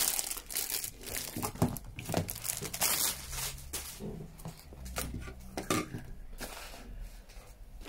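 Thin plastic crinkling and rustling irregularly as the dispenser's plastic bag covers and loose wrapping are handled.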